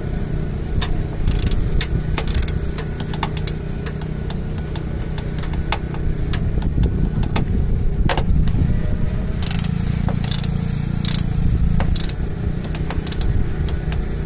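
Ratchet head of a half-inch-drive click torque wrench clicking in many short strokes as the top strut mount nuts are tightened to 24 foot-pounds, over a steady low rumble.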